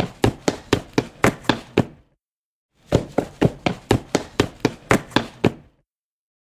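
Sound effect of quick, evenly spaced thuds, about four a second, in two runs of about three seconds each with a short gap between them, then silence.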